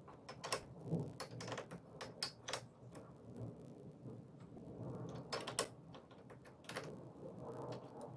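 Irregular light clicks and knocks, a dozen or so scattered unevenly, of small hard parts being handled.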